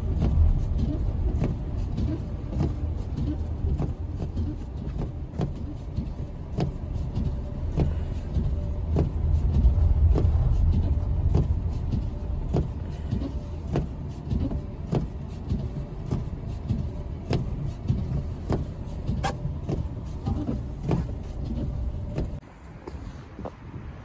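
Car driving on a snowy road, heard from inside the cabin: a steady low rumble of engine and tyres, with frequent small clicks and knocks over it. It drops quieter for the last second or so.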